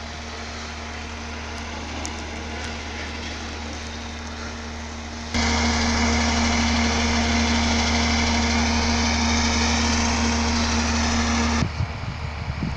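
A steady machine-like hum with a constant low drone and hiss. It gets louder about five seconds in and drops back again near the end.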